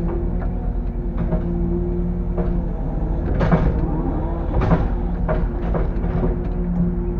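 Bobcat E85 excavator's diesel engine running steadily under hydraulic load, with knocks and metal scrapes of the bucket working debris, loudest a little past three and a half and about four and a half seconds in.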